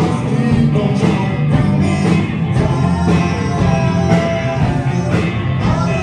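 Live band playing a rock song, loud, with guitar and a singer.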